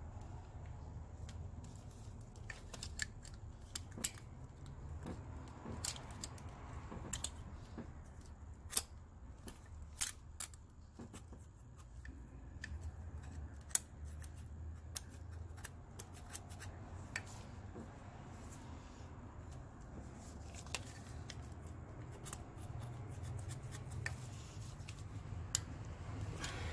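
Irregular small metallic clicks and scrapes of hand tools working the valve train of a Honda 3.2L V6: a valve adjusting tool and feeler gauge on a rocker arm's adjusting screw and locknut while a valve's clearance is set. A low steady hum runs underneath.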